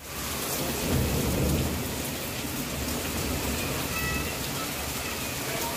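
Heavy rain pouring steadily in a thunderstorm, with a low rumble swelling about a second in.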